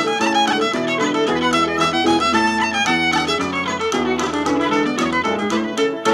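Cape Breton fiddle playing a hornpipe in quick running notes over low accompanying notes.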